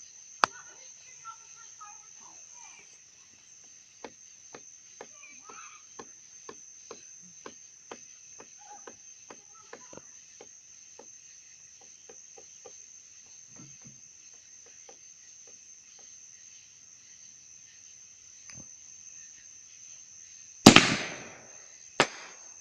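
Crickets chirping steadily in the background, with faint scattered clicks through the first half. Near the end a consumer firework goes off with a loud bang that trails away, and a second sharp bang follows about a second and a half later.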